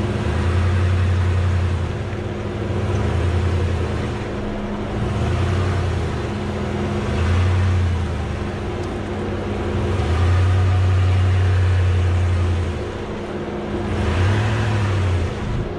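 2021 Ram 1500 pickup crawling over rock, heard from beside its front wheel: a steady engine hum under a deep rumble that swells and fades every second or two, with the tyres rolling and grinding over the stone.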